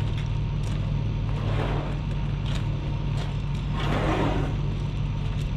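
Gleaner combine running steadily in a corn field: a constant low engine drone, with brief swells of hiss about a second and a half in and again around four seconds.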